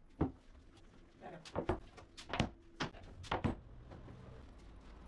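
Cut MDF panels being set down and stacked on a wooden workbench: a series of sharp wooden knocks, some in quick pairs, as board strikes bench and board.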